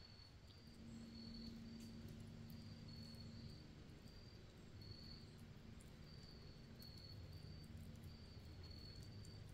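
Near silence in the woods: faint short high chirps about once a second, like a cricket, over a low steady hum, with light crackling from a campfire.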